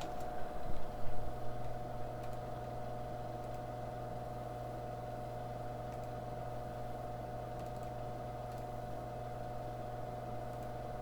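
Steady electrical hum of workbench equipment, with a low hum coming in under a second in, and a few soft handling knocks in the first couple of seconds.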